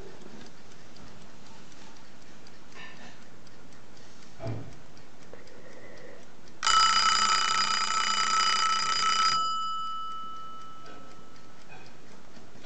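1930s French Art Deco Dep marble alarm clock ringing its alarm bell loudly for about three seconds, then stopping suddenly, with the bell's tones dying away over the next second.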